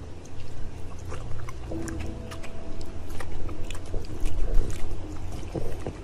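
Background music with a French bulldog licking and smacking its lips, heard as many short, irregular clicks.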